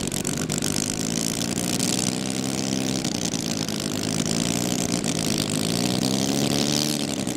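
Petrol radial engine of a large-scale RC warbird running hard, its pitch sagging and rising again a few times as it passes.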